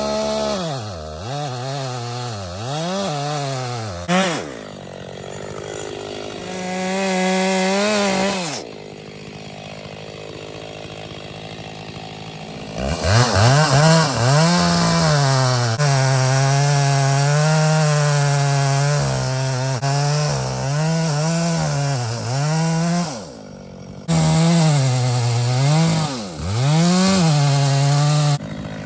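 Chainsaw revved in a few short blips, then idling, then held at high throttle for about ten seconds with its pitch wavering under load as it cuts into a large tree trunk. It drops back briefly about 23 seconds in and then goes back into the cut.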